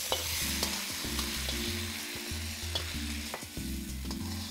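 Thin strips of marinated beef sizzling in a very hot wok as a metal spatula stirs them, with a few sharp clicks of the spatula against the wok.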